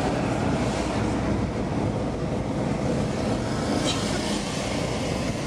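Steady rumble and noise of a vehicle in motion, heard from on board.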